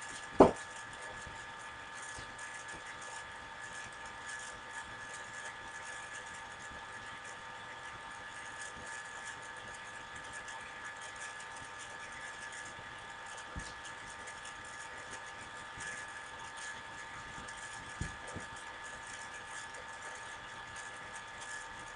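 Laptop cooling fan running steadily, a hiss with several steady tones, picked up by the laptop's own built-in microphone. A sharp click comes just after the start, and two faint knocks follow later.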